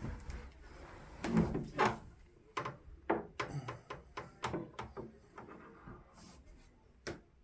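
A series of light knocks and clicks from an antique sewing machine and its cabinet being handled, lids and small doors opened and shut.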